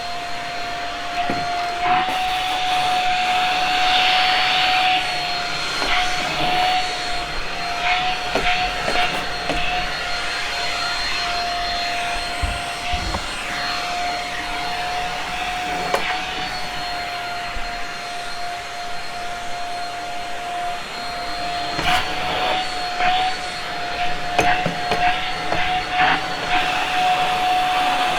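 Shark Rocket stick vacuum running steadily with a high motor whine while it is pushed along carpet edges, with scattered knocks as the head bumps the wall and floor.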